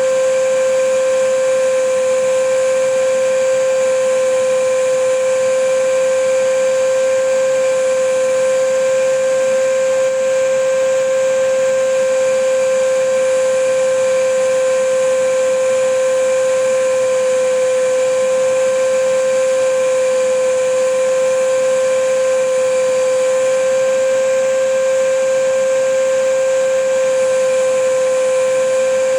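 Vacuum cleaner running steadily, a constant motor whine over airflow hiss, with no change in pitch or level.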